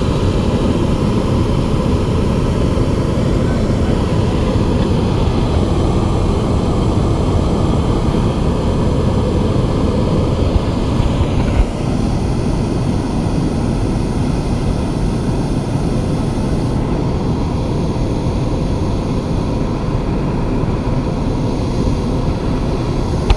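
Hot-air balloon propane burner firing with a steady, continuous roar. The sound drops slightly in level about halfway through and then carries on.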